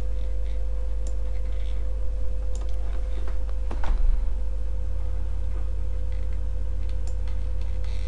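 Steady low electrical hum with a faint constant tone above it, broken by a few scattered light clicks.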